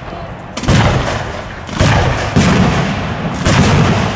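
Aerial firework shells bursting, four loud bangs in about three seconds, each rolling on in a long rumbling echo.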